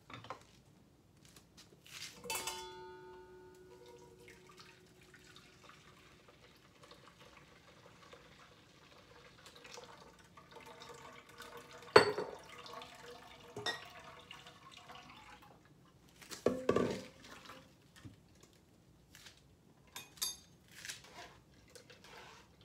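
Stainless steel kitchenware handled while straining cucumber juice: a metal bowl clangs and rings briefly about two seconds in, a sharp clank near the middle is the loudest sound, and further knocks and clatter follow, with juice trickling and dripping through a mesh strainer into the bowl.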